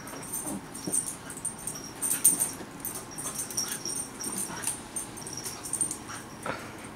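Pembroke Welsh Corgi puppy making a rapid, irregular string of short high-pitched whines and vocal noises, the corgi 'talking'.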